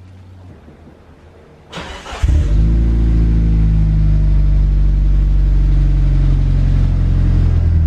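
Mitsubishi Lancer Evolution's turbocharged four-cylinder engine starting about two seconds in: a brief burst of cranking, then it catches and idles steadily and loudly.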